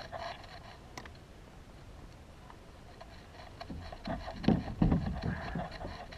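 Mostly quiet, then a cluster of dull thumps and knocks from about four seconds in, loudest near five seconds, as a landing net is worked alongside a kayak to bring in a hooked tarpon.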